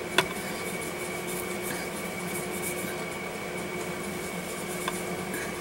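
Hands rolling a snake of polymer clay on a marble tabletop: a faint soft rubbing over a steady electrical hum, with one sharp click just after the start and a smaller one near the end.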